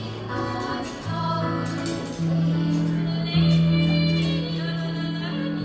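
Children's choir singing a song with instrumental accompaniment, the low accompanying notes held and changing every second or so, with light percussion.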